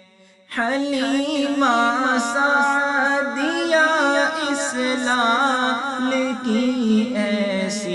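Naat recording: layered a cappella voices enter suddenly about half a second in, after a brief fade to near silence, and carry on in held, gliding notes with no clear words.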